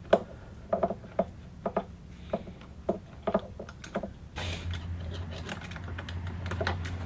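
Irregular light clicks and taps of small parts being handled, roughly two a second. A steady low hum comes in about four seconds in.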